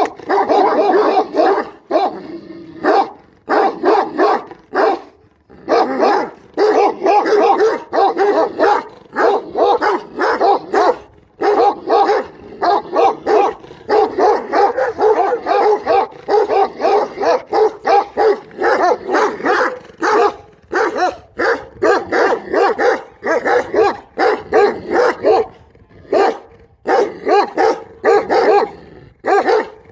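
A dog barking over and over in quick runs of several barks a second, with a few short breaks between runs.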